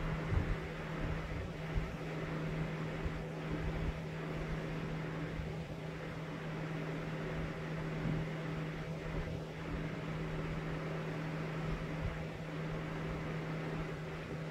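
A steady mechanical hum with one strong low tone and fainter ones above it, with a few faint rustles from hand-sewing a stuffed fabric toy.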